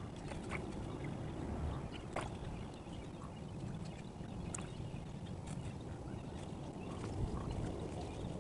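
Kayak paddling in sped-up playback: water sloshing and splashing against the paddle and hull over a steady low rumble, with scattered small clicks and drips.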